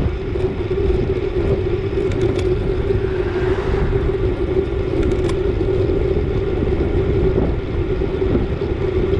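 Wind buffeting the microphone over steady road noise, with a constant low hum.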